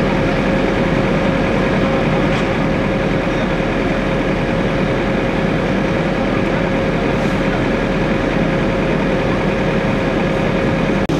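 Fire engines' diesel engines running steadily at idle: a constant heavy drone with a steady pitched whine over it.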